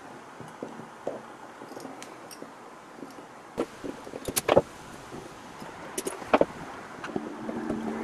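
Needle-nose pliers gripping and bending the metal connector strips of a Dyson V10 lithium-ion battery pack: a handful of small, sharp metallic clicks, the loudest a little past the middle.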